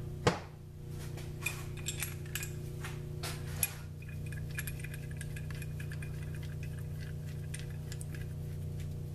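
Chuck key turning in a keyed drill chuck, loosening the jaws to release a center drill: a few sharp clicks in the first few seconds, then light, quick ticking of the geared teeth. A steady low hum runs underneath.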